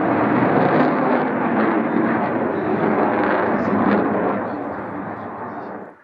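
Eurofighter Typhoon's twin Eurojet EJ200 turbofan engines, a loud jet rumble with a few sharp crackles as the fighter flies its display. It fades after about four seconds and cuts off abruptly near the end.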